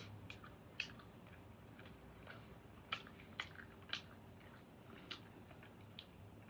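A small dog chewing something crunchy: irregular crisp crunches and bites, a few louder ones near the middle.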